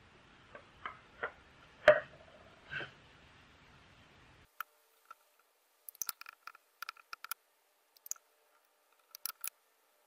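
A degreaser bottle and cloth are handled, with a sharp knock about two seconds in. Then come short, crisp scratching clicks as the cloth is rubbed over a greasy wooden board to wipe off old grime.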